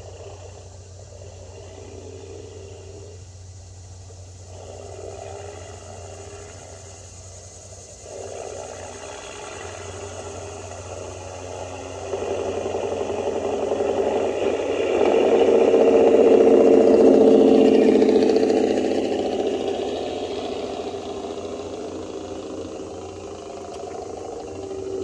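Sound module of an RC semi truck playing a Caterpillar diesel engine with jake brake chatter. It grows louder as the truck comes closer, is loudest about two-thirds of the way through, then fades as it moves away.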